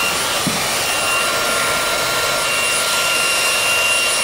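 K9 Reliance cordless handheld vacuum cleaner running steadily: a rushing of drawn air with a high, steady motor whine.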